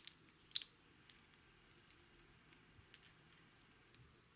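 Small plastic charms and beads clicking against a clear plastic cup as the charms are picked out: a few sharp clicks in the first second, then only faint scattered ticks.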